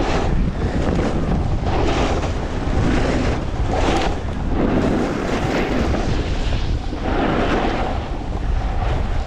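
Wind rushing over the microphone of a camera on a snowboarder riding fast downhill. The board's edge scrapes across packed snow in surges about once a second as it turns.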